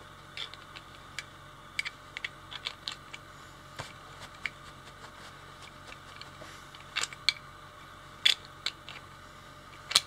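3D-printed plastic buckle clips clicking and clattering as they are fastened and tugged on a vest's straps: a run of irregular sharp clicks, a few louder snaps in the second half.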